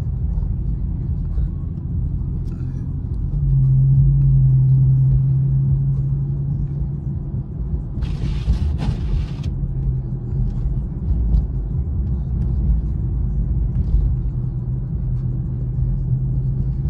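Infiniti Q50 3.7's V6 engine and tyres heard from inside the cabin on a snowy road: a steady low drone that swells for a few seconds, with a brief hiss about eight seconds in.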